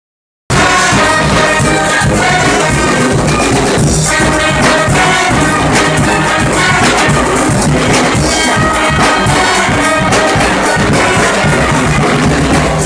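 Live brass band playing, horns over percussion, starting abruptly about half a second in.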